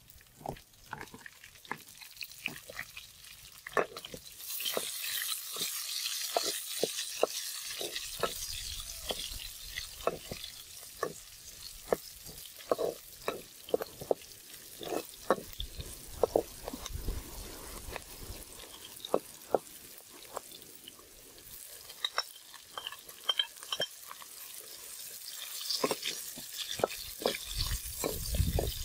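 Metal spatula scraping and tapping against a wok as chilies, garlic and herbs stir-fry, with a hot-oil sizzle that swells about four seconds in and again near the end.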